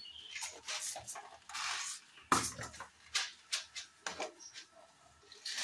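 Kitchen utensils and food being handled at a counter: scattered clinks, knocks and short scraping rustles.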